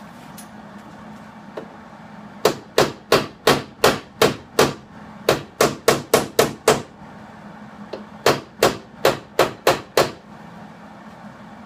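Hammer tapping a replacement rocker panel to knock it into position before it is tack-welded. There are three quick runs of about seven sharp blows each, with short pauses between runs.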